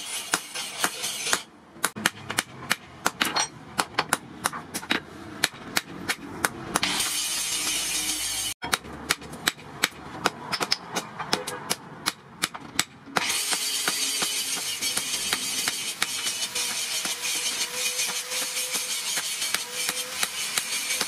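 Blacksmith's hand hammer beating a hot steel blade, forged from a disc brake, on an anvil: a long run of quick, sharp metal strikes.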